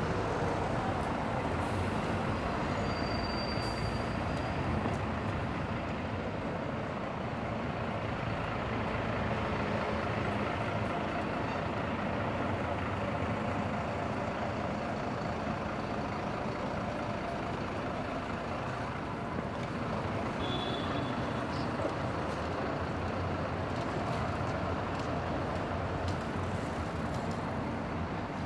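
Steady city street traffic, with a city bus running close by in the road.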